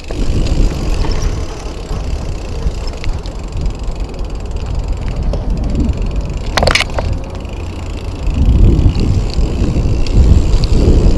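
Mountain bike being ridden: heavy wind buffeting the microphone over tyre and drivetrain rumble, a single sharp clack about two-thirds of the way through, and the rumble growing louder near the end.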